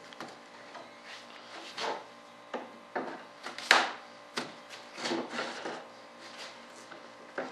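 Two halves of a cured composite wing mold being pried apart by hand: irregular creaks, scrapes and clicks as the halves separate, the sharpest crack about three and a half seconds in.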